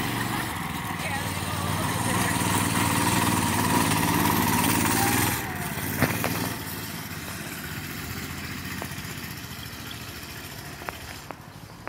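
Off-road go-kart's small engine running as the kart drives across grass, loud and close for the first five seconds, then quieter and steady as the kart is farther off.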